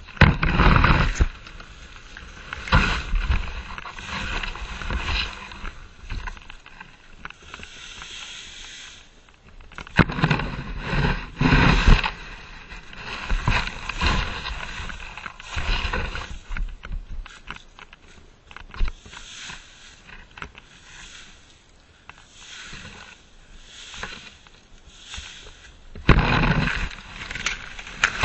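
Dry fallen leaves rustling and crunching right against the microphone as they are raked and scooped up, in irregular bursts with louder scrapes and knocks about a second in, around the middle, and near the end.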